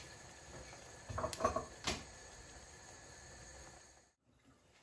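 Light kitchen handling sounds: a few soft knocks and clinks about a second in, over a faint steady hiss. The sound cuts out to silence near the end.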